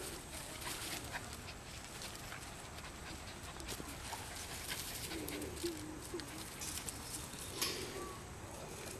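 Wirehaired pointing griffon puppies making a few faint, short low-pitched vocal sounds about halfway through and again near the end, with light rustling of dry leaves and twigs.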